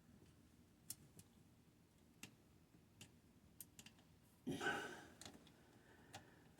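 Faint scattered clicks and taps of small parts and tools being handled while fitting a well pump pressure switch, with one louder brief rustle about four and a half seconds in.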